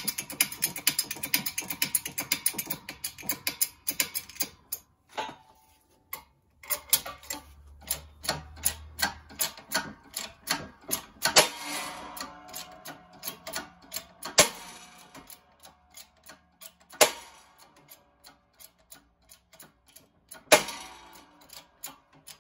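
Metal clicking from a U-joint and axle-shaft yoke under load in a hydraulic shop press. Dense rapid ticking for the first few seconds is followed by sparser ticks and four sharp, loud pops about three seconds apart, as the U-joint cap shifts in the yoke.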